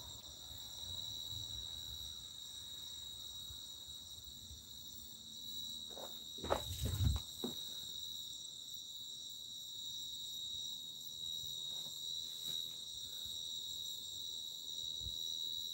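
Crickets chirring in a steady, high-pitched night chorus from the surrounding grass and weeds. A brief burst of scuffing noise comes about six and a half seconds in.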